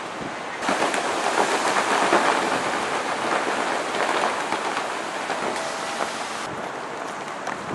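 Gusty wind rushing through the leaves of street trees, a dense steady hiss that comes up abruptly about half a second in and falls back sharply near the end.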